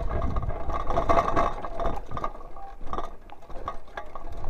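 Mountain bike rolling along a dirt single-track trail: tyre noise on the dirt with the bike rattling and clicking over bumps.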